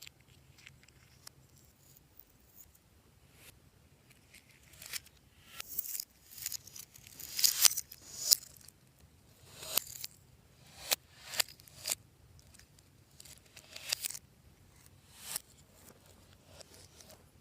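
Fluffy slime being worked by hand, stretched, squished and pulled apart, giving a series of sticky crackles and pops. A few faint ones come first, then about a dozen louder ones in the middle.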